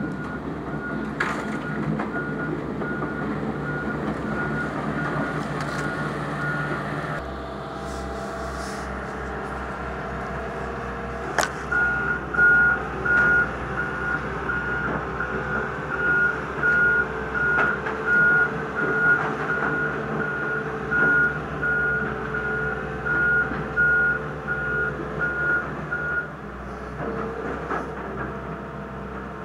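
John Deere backhoe's diesel engine running while its reversing alarm beeps steadily, about twice a second. The beeping stops about seven seconds in and starts again about five seconds later, with a sharp knock just before it resumes.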